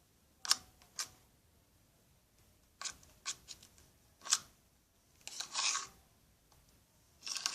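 A small spoon stirring slime made of glue, shaving foam and laundry detergent in a bowl: irregular short scrapes and clicks of the spoon, with a longer scrape about five and a half seconds in.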